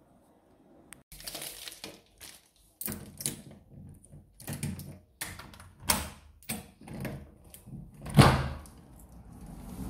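Close handling noise: the phone rubbing and rustling against a woven plastic bag, with an uneven run of sharp clicks and knocks, the loudest a thump a little after eight seconds in.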